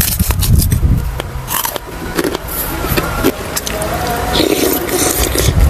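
A puffy white kerupuk cracker being bitten and chewed close to the microphone, with crisp crunches crowded into the first two seconds, followed by chewing a spoonful of meatball soup with noodles.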